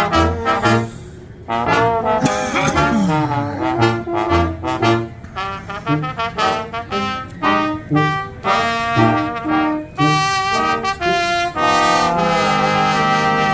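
Music led by brass instruments: a run of short, punchy notes, then a held chord near the end.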